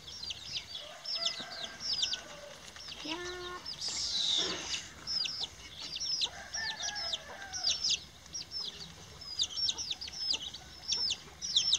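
Small birds chirping continuously in quick, high, downward-flicking notes, several a second, with a couple of lower chicken calls about three seconds in and again past the middle.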